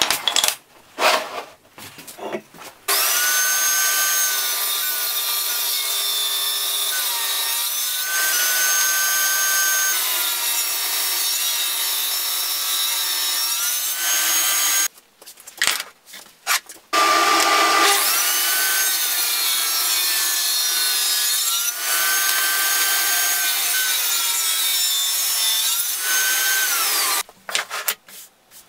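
Benchtop table saw ripping thin hardwood strips. Its motor whine dips and recovers in pitch several times as the blade loads up in the cuts. It runs in two long stretches with a break of a few seconds in the middle, and a few wooden knocks of strips being handled come at the start.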